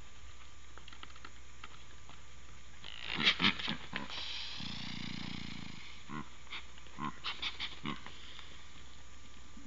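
Whitetail buck snort-wheezing, a dominance challenge to another buck: a quick run of sharp nasal snorts, then a drawn-out hissing wheeze of about a second and a half, followed by another run of about five short puffs.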